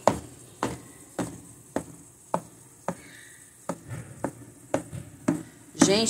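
A metal fork stabbing repeatedly into a baked chocolate cake in an aluminium baking pan, making a short sharp tap with each stab, about two a second.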